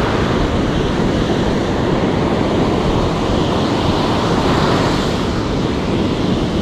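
Ocean surf breaking and washing up a sandy beach, mixed with wind rumbling on the microphone: a steady, loud rush.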